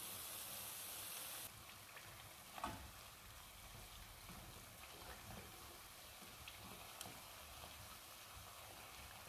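Faint, steady sizzle of small batter fritters deep-frying in peanut oil, with scattered small crackles. The hiss drops abruptly about a second and a half in, and there is a light knock about two and a half seconds in.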